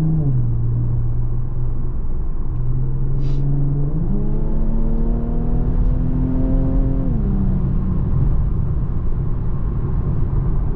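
Infiniti Q50's twin-turbo V6 heard from inside the car: it settles to a low, steady note, then about four seconds in it revs up and pulls steadily higher for about three seconds before the throttle lifts and the pitch drops. A short hiss comes about three seconds in.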